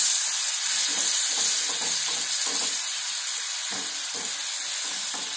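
Watery potato curry sizzling in a nonstick frying pan, with a spatula stirring and scraping through it in short irregular strokes over a steady hiss.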